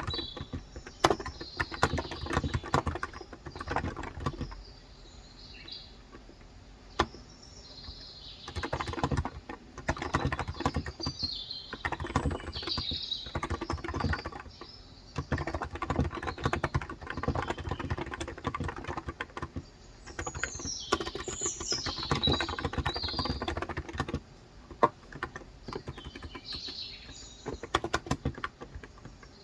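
Typing on a Cox Endeavor 35g electrostatic capacitive (topre-style) tenkeyless keyboard in quick runs of keystrokes with a couple of short pauses. Birds chirp now and then in the background, most strongly about two-thirds of the way through.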